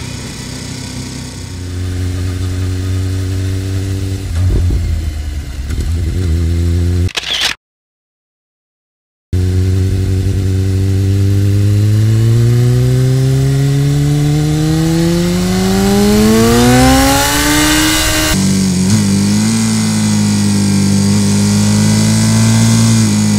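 Sport motorcycle engine under way: a steady note, then the sound cuts out for about two seconds, then the revs climb smoothly for about nine seconds before dropping suddenly to a lower, steady note, as at an upshift.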